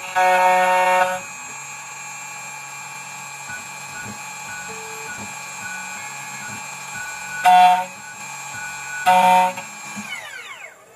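2M2 Tank CNC key cutting machine running with a steady multi-tone whine while it cuts a HON66 key blank, then spinning down with a falling pitch near the end. Three short, loud, chord-like tones stand out: one at the start, and two close together in the last few seconds.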